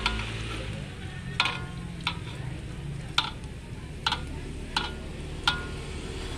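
Battered snacks deep-frying in a wide metal wok of hot oil, a steady sizzle, with a metal ladle clinking against the wok about six times as the pieces are stirred.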